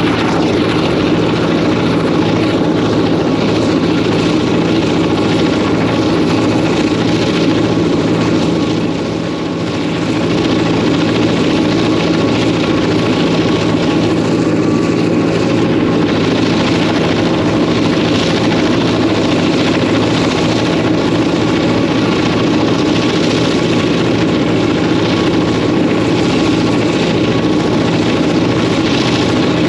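EMD 567-series two-stroke, Roots-blown diesel locomotive engine working steadily as the train runs, heard from the locomotive's roof. A steady low drone, dipping slightly about nine seconds in.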